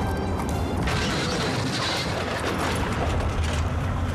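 Background music with a steady bass line, over which a noisy clattering crash comes in about a second in and runs for roughly two and a half seconds.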